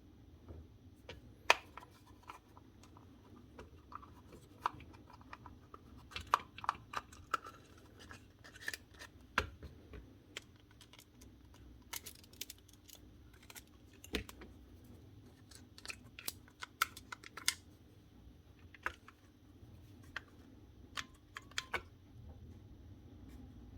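Irregular clicks, taps and scrapes of tools and plastic parts being handled while working at the line head of a cordless strimmer to get it off.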